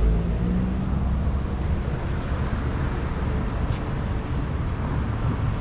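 Street traffic noise with a steady low rumble, mixed with wind buffeting the microphone.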